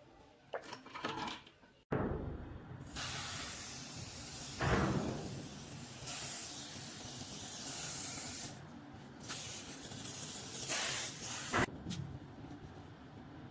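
Hissing spray-like noise, starting suddenly about two seconds in and running in several stretches of changing loudness that cut in and out abruptly.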